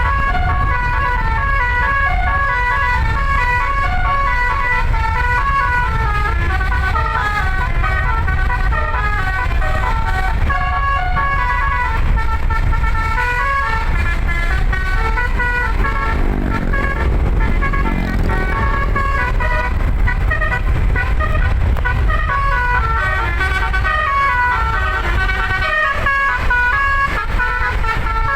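An 11-note 'telolet basuri' musical air horn playing a quick tune of short stepped notes, over a steady low rumble.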